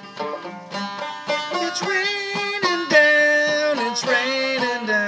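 Banjo played clawhammer style: quick plucked notes in a steady rhythm, with long held, wavering notes over it from about a second and a half in.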